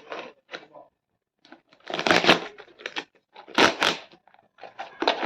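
A parcel's packaging being torn open and crinkled by hand, in short irregular bursts of tearing and rustling, the loudest about two seconds in and again near the four-second mark.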